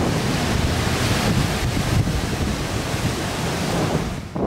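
Strong typhoon wind buffeting the microphone: a loud, steady rush with heavy low rumbling. It dips briefly near the end.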